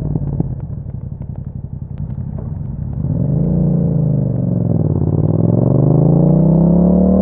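A 2021 Yamaha MT-07's 689 cc parallel-twin engine, fitted with an Akrapovic exhaust, running at low revs with an uneven, crackling rumble. About three seconds in it revs up and drops back, then climbs steadily under acceleration.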